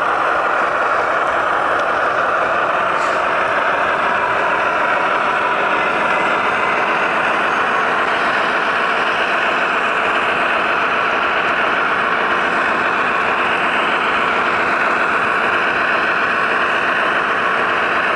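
Onboard sound systems of a pair of HO scale Broadway Limited Imports GE AC6000CW model locomotives playing the running sound of their sixteen-cylinder turbo diesels through small speakers: a steady engine drone with little bass.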